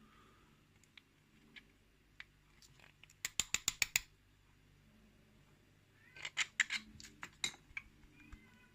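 Quick runs of small metallic clicks and taps from a lock cylinder being gutted, its springs and pins worked out with a tool. About eight rapid clicks come some three seconds in, another cluster about six seconds in, and a few more near the end.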